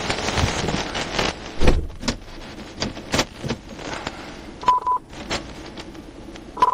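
Scattered clicks and knocks of handling close to the microphone, with a rushing noise in the first two seconds. Two short steady beeps from a police radio come near the end, the second just before a radio call.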